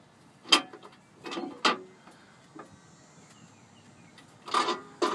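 Sharp metal knocks and clunks from a piece of metal at the bottom of a case under a 2007 Chevrolet Silverado as it is struck or moved by hand to test the clunk, which still makes a little noise with tape wedged in. The loudest knock comes about half a second in, a couple more follow around a second and a half, and another cluster comes near the end.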